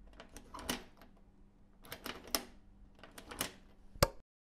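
Sound effect for an animated logo reveal: three quick flurries of clicks, then one sharp hit about four seconds in as the logo settles.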